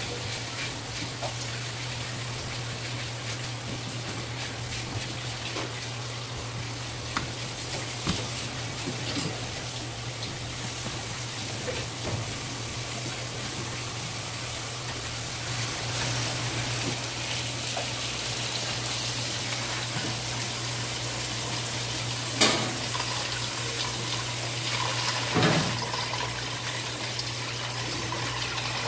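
Tap water running steadily into a steel basin of ice water, over a constant low hum. A few sharp knocks stand out, the loudest about three-quarters of the way through.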